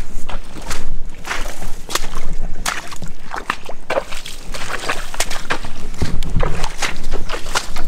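Footsteps in rubber boots squelching and splashing through waterlogged, mossy forest ground, with grass and twigs brushing; irregular steps, about two a second.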